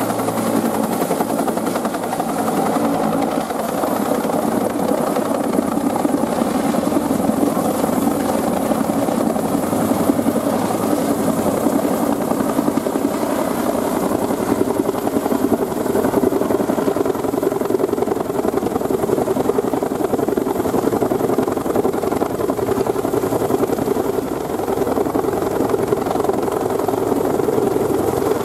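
JGSDF Bell UH-1 helicopter running steadily overhead: the beat of its two-bladed main rotor over its turboshaft engine.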